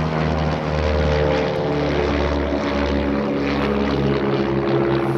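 Two radio-control model biplanes flying overhead together, their engines and propellers droning as several overlapping tones that drift slowly in pitch.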